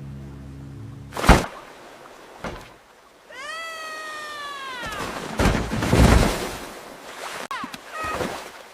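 Cartoon sound effects: a sharp knock about a second in, then a long meow from a cartoon cat that rises briefly and slowly falls in pitch, followed by a loud rushing noise and a few short chirps near the end.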